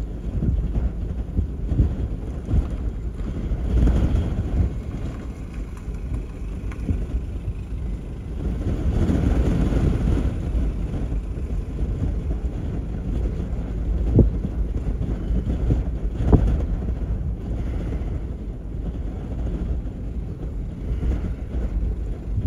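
Wind buffeting a phone's microphone: a low rumble that rises and falls in gusts, strongest about nine to ten seconds in, with two brief sharp pops later on.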